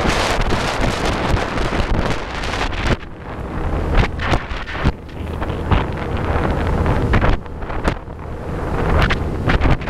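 Wind buffeting the microphone on a small boat running fast up a shallow river, over the low rumble of the boat's motor and rushing water. The buffeting is heavy and continuous for the first few seconds, then comes in gusts.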